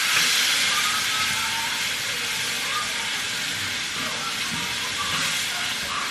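Water poured into a hot skillet of dark browned gravy base, hissing and sizzling into steam as it is stirred in. The hiss is loudest near the start and settles a little as the pan cools.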